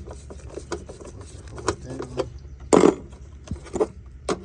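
Metal hand tools and loose parts clinking and clattering while parts come off a car's engine bay, with a louder clank about three seconds in.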